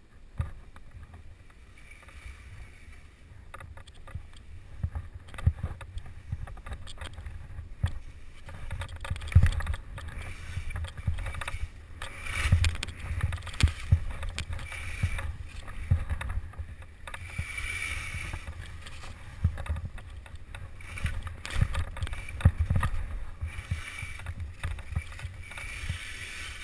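Skis swishing through powder snow in a run of turns, over a low rumble of air and jolts on a body-worn camera. Frequent sudden thumps come from bumps and pole plants.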